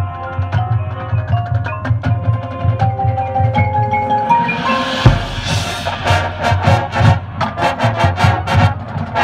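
High school marching band's front ensemble playing: mallet keyboard notes stepping upward over a low pulse, building through a rising swell into a heavy low hit about five seconds in, then a run of sharp percussion strikes.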